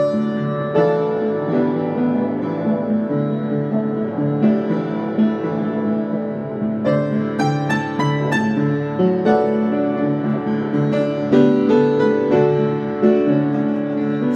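Gulbransen upright piano played by hand: a steady flow of sustained chords and notes, with brighter higher notes coming in about seven seconds in.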